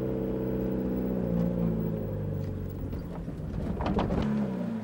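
Van engine running while the vehicle slows, its note falling steadily. About four seconds in there is a short clatter of clicks, and the engine then settles to a lower, quieter idle as it pulls up.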